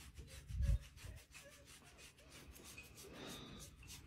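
Faint rubbing of a hand scratching a jaguar's chin fur, with a soft low thump a little over half a second in.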